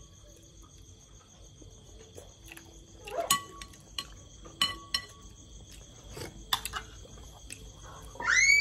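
Night insects trilling steadily in two high tones, with a few sharp clinks of dishes and cutlery against a plate from about three seconds in. Near the end, a short high voiced exclamation rises and falls.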